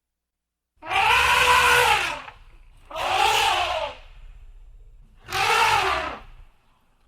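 Elephant trumpeting: three loud, brassy calls, each about a second long and rising then falling in pitch, with short silent gaps between them.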